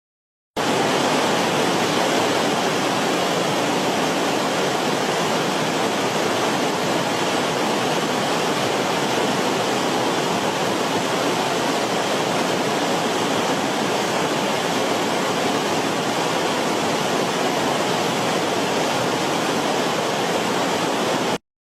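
Waterfall: water falling with a steady, even rush. It cuts in about half a second in, after a brief silence, and cuts off just before the end.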